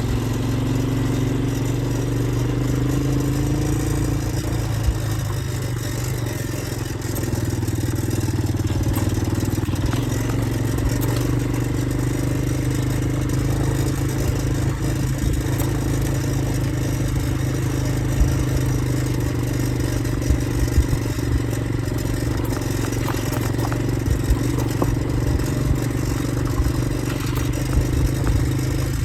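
Motorcycle engine running steadily while riding, easing off briefly about six seconds in, with scattered clicks and rattles.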